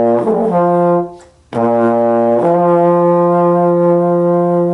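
Trombone playing a low B-flat and lip-slurring up to the F above it. The first F stops about a second in, then after a short breath the low note returns and slurs up again to a long, steady F.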